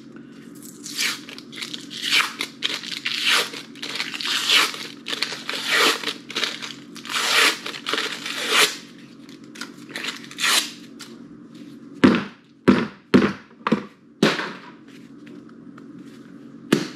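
The paper wrapper of a tube of refrigerated pizza crust dough being torn and peeled off in strips, a run of tearing and crinkling. A few seconds after the tearing stops come four sharp knocks.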